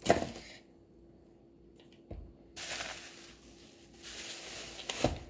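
Groceries being lifted off a stone countertop: a sharp knock at the start, a dull thump about two seconds in, then a plastic produce bag rustling in two spells, ending with another knock.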